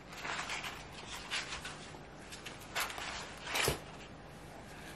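Small gel polish bottles being handled and moved about in their box: scattered light clicks and rustling, with one sharper knock about three and a half seconds in.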